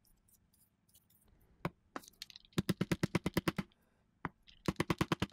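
Rubber mallet tapping a jatoba hardwood block to drive string ferrules into a swamp ash Telecaster body: two single knocks, then two quick runs of light taps at about ten a second. The tone of the taps changes as the ferrules bottom out in their holes.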